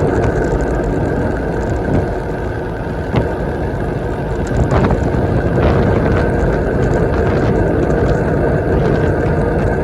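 Wind rushing over the microphone of a bicycle speeding downhill, with road noise from the tyres and a few faint clicks.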